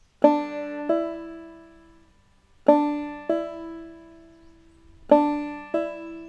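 Five-string banjo playing three hammer-ons in turn: a string is struck and rings, then about half a second later a finger hammers onto a fret and the note steps up in pitch without a second pluck.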